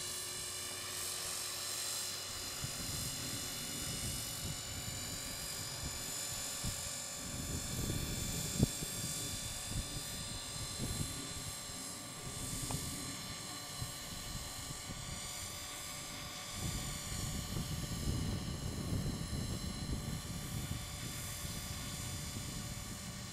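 A 450-size electric radio-controlled helicopter flying a slow automatic circle, its motor and rotor giving a steady high whine. Gusts of wind rumble on the microphone, and there is a single sharp click about eight and a half seconds in.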